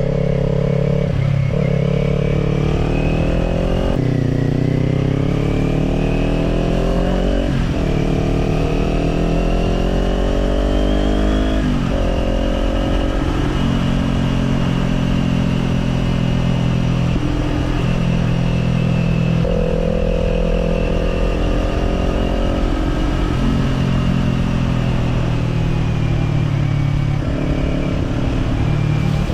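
Kawasaki Z400 parallel-twin engine through an Orion Katya slip-on exhaust, accelerating up through the gears. The pitch climbs, drops at a gear change, and climbs again before a second change. It then settles into a steady cruise, dipping briefly a couple more times later on.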